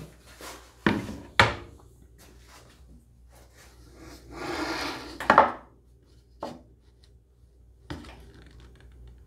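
A board being handled and pushed into place on a wooden table-saw crosscut sled: a few sharp wooden knocks, and a short sliding scrape about four seconds in.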